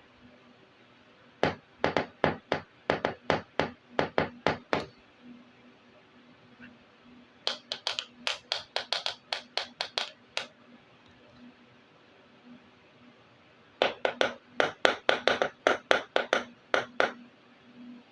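Rapid sharp clicks of small plastic toy pieces being handled, in three runs of about three seconds each, roughly four clicks a second.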